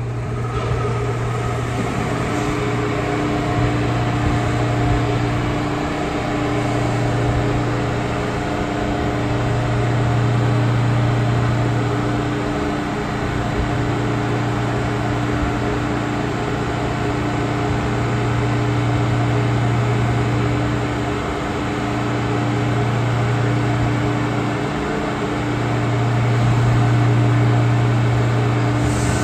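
A New York City subway train standing at the station, its onboard equipment humming steadily. A deep hum swells and eases every few seconds, with several steady higher tones held above it.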